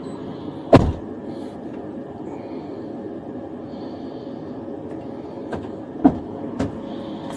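Steady rumble of a running police car, with a sharp knock about a second in and a few lighter knocks around six seconds in.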